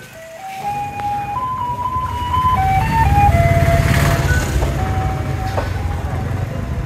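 A motor vehicle passing close, its engine rumble swelling and then easing, while a simple electronic jingle plays one note at a time.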